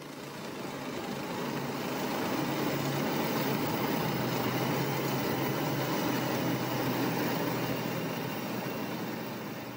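BMPT-72 Terminator tracked armoured vehicle, built on a T-72 tank chassis, driving past on a paved road: diesel engine and track noise with a steady low hum, swelling over the first couple of seconds and fading near the end.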